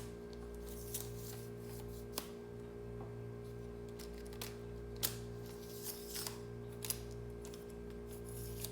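Plastic and aluminium parts of a light phone tripod being handled: a handful of separate sharp clicks and knocks, spread over several seconds, over a steady low hum.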